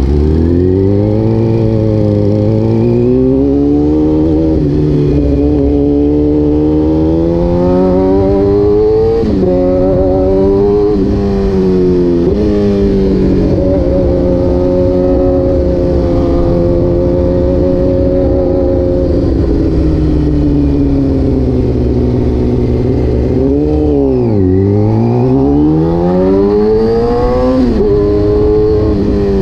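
Kawasaki ZX-10R's inline-four engine under way, its pitch climbing and then dropping sharply several times as it is shifted up through the gears. It runs fairly steady through the middle, falls steeply as the bike slows about three-quarters through, then climbs again as it accelerates.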